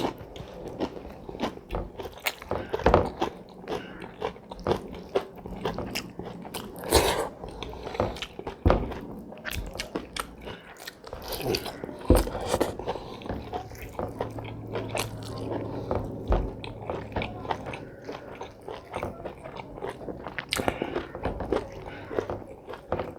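Close-miked eating sounds: irregular biting and chewing with crunching and wet smacks.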